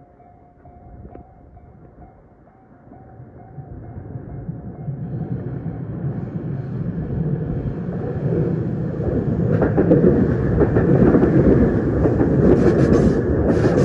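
Japanese level-crossing warning bell ringing in even pulses, then an electric train approaching with a rising rumble and passing close by over the crossing, loudest in the last few seconds.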